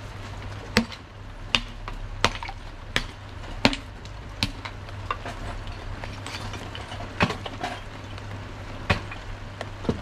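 Hammer blows breaking up old terracotta clay sewer pipe: six sharp cracks about 0.7 s apart, then a few scattered knocks over the rest of the time.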